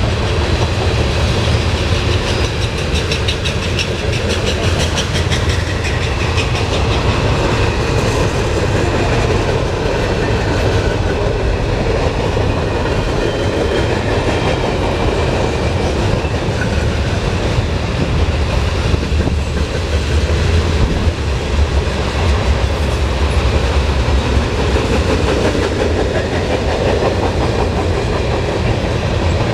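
Freight train cars (covered hoppers, coil cars and tank cars) rolling past close by: a steady rumble of steel wheels on rail, with rhythmic clicking from the wheels, strongest in the first several seconds.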